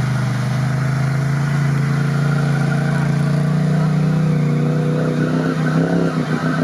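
Sport side-by-side UTV engine running under load as it wades through a shallow muddy stream, with water splashing around its wheels. The engine note holds steady and climbs slightly, then the revs waver near the end.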